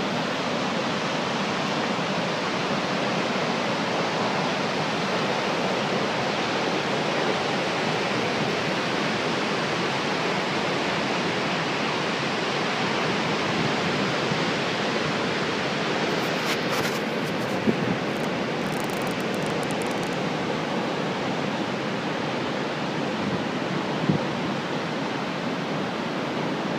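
Steady, even rushing of Vøringsfossen, a large waterfall crashing down into a gorge, heard from the cliff top. Two brief knocks sound partway through.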